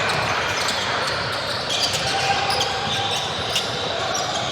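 Basketball game in a gymnasium: a ball bouncing on the court and short sneaker squeaks over a steady background of hall noise.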